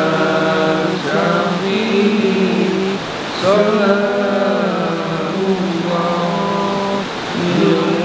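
A group of men chanting an Islamic devotional chant together in unison, in long held notes that rise and fall in phrases with short breaks between them.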